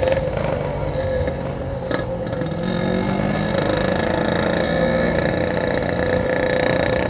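Yamaha RX King two-stroke single-cylinder motorcycle engine running steadily under way. About two and a half seconds in, a brighter hiss rises over it.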